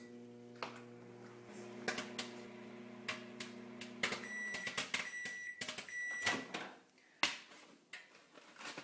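Microwave oven running with a steady hum while popcorn kernels pop inside a paper bag. The hum stops about four seconds in and the microwave beeps three times, with a few more scattered pops after.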